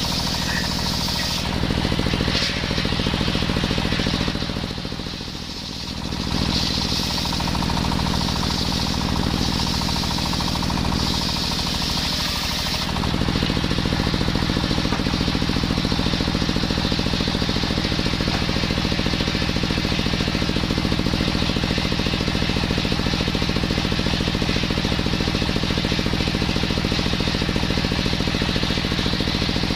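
Small two-stroke brush-cutter engine fitted with a circular saw blade, running at high revs while sawing coconut wood. Over the first dozen seconds a high whine comes and goes, with a brief drop in level about five seconds in; after that the engine runs steadily.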